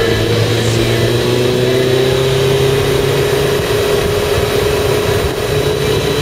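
Motorcycle engine running under way at a nearly steady pitch, mixed with wind and road noise.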